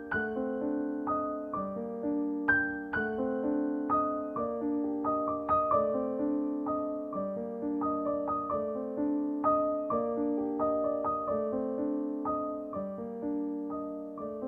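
Background piano music: a gentle melody of single struck notes over low chords, each note fading after it is played.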